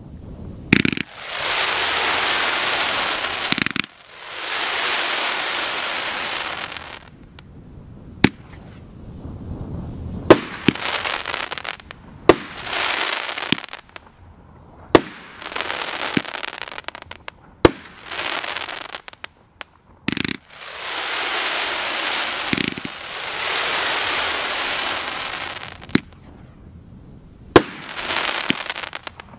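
A 'Snake Charmer' multi-shot consumer fireworks cake firing: a dozen or so sharp bangs, spread out, with long stretches of dense rushing noise, two to three seconds each, in between.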